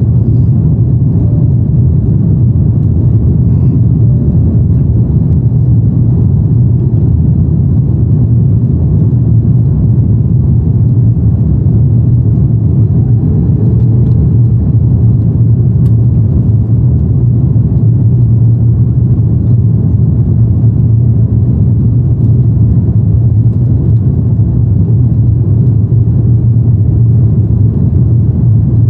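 Steady low rumble inside the cabin of an Airbus A330-300 descending with flaps extended: its Rolls-Royce Trent 700 engines and the airflow, heard from a window seat over the wing.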